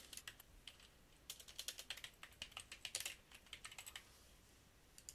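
Computer keyboard typing, faint, in quick runs of keystrokes that stop about four seconds in.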